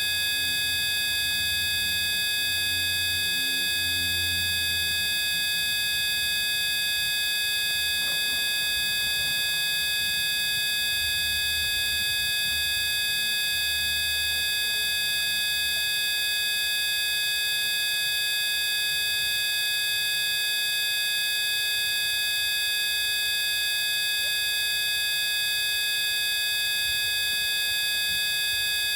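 A steady layer of several pure electronic tones held at fixed pitches, unchanging throughout, with a low hum that swells and fades a few times in the first half.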